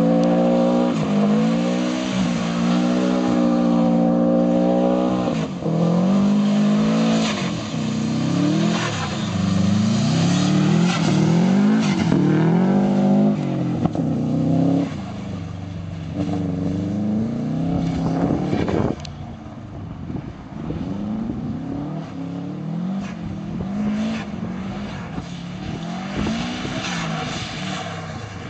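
Subaru Impreza WRX STI Type RA's turbocharged flat-four engine revving hard in repeated rising and falling waves as the car slides in circles on loose gravel. It grows quieter about two-thirds of the way through.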